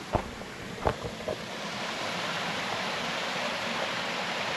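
Steady rush of a small creek waterfall spilling into a rock pool, growing louder about two seconds in and then holding even. Two brief knocks come in the first second.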